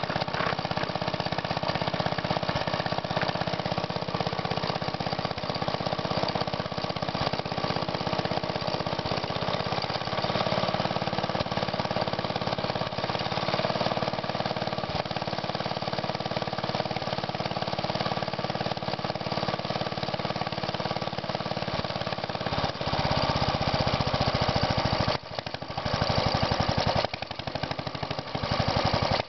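1938 Fairbanks Morse model ZD 1.5 hp throttle-governed single-cylinder gasoline engine running with a fast, even firing beat. In the last few seconds the running turns uneven, with a couple of brief drops in loudness.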